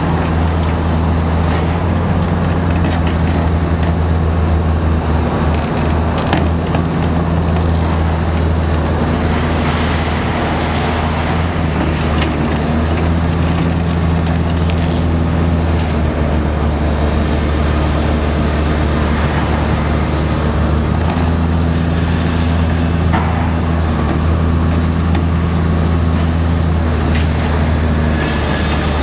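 Diesel engine of a high-reach demolition excavator running steadily under load, while its hydraulic crusher jaw chews reinforced concrete, with crunching, crackling rubble and a brief high squeal about ten seconds in.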